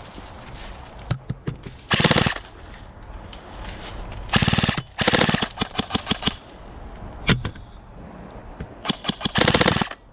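KRYTAC LMG electric airsoft gun firing full-auto bursts of rapid, evenly spaced shots. There is a short burst about two seconds in, two bursts around the middle followed by a few single shots, and a longer burst near the end.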